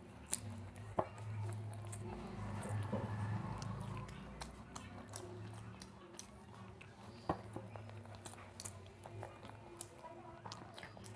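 Close-miked chewing of a mouthful of chicken biryani: wet mouth clicks and smacks, with fingers mixing rice on a disposable plate. There is a fuller, louder stretch about two to four seconds in, over a low steady hum.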